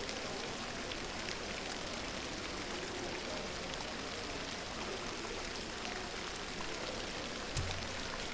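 Steady, rain-like hiss of water in a diving pool hall. Near the end comes a short, low thump as the diver springs off the 10 m concrete platform.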